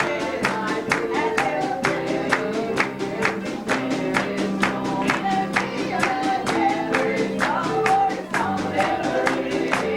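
Live gospel band music: guitar, bass and piano playing over a steady beat.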